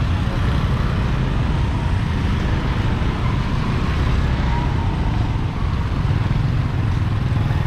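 Steady road traffic noise on a city street, a continuous rumble of passing vehicles.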